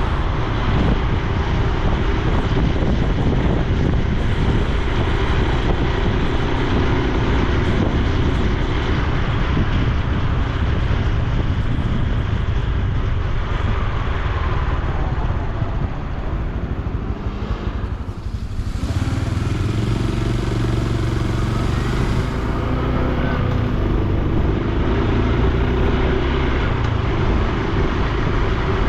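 Honda Super Cub C125's single-cylinder four-stroke engine running as the motorcycle rides, with wind and road noise over the microphone. The sound eases off briefly about two-thirds of the way through, then the engine note picks up again.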